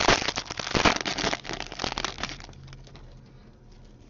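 The foil wrapper of a hockey card pack is torn open and crinkled for about two and a half seconds. Then come quieter rustles and light clicks as the cards are handled.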